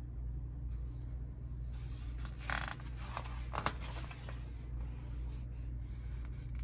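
Page of a picture book being turned by hand: a few short paper rustles and a scrape in the middle, over a steady low hum.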